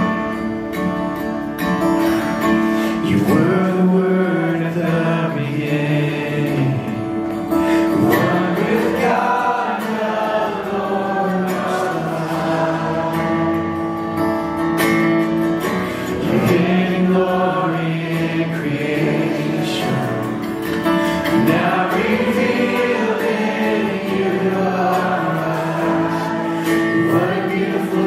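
Live worship band playing and singing a song: voices in melody over acoustic guitar and the band.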